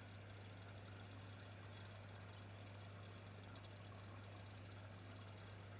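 Near silence: a faint steady low hum with a soft hiss underneath.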